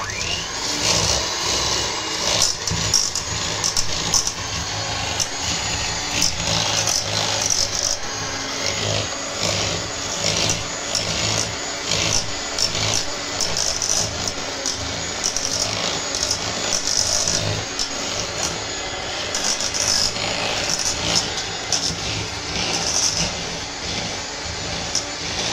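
Kenwood 250 W hand electric mixer switched on and running on its lowest speed, its twin beaters creaming soft butter in a stainless steel bowl, with frequent knocks as the beaters hit the bowl.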